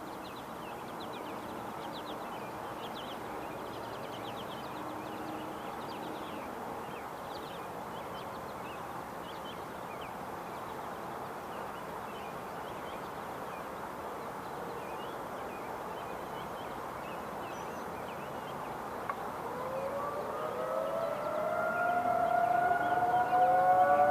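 Federal Signal 2001-130 and 2001SRN outdoor warning sirens winding up for a monthly test. About 20 seconds in they start one after another, each rising in pitch and growing louder, and settle into steady tones at slightly different pitches. Before that there is only a steady background hiss with faint scattered high chirps.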